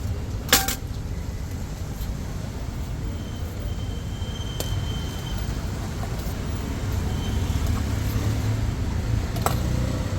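Steady low rumble of street traffic, with a sharp clack about half a second in and a second, lighter one near the end.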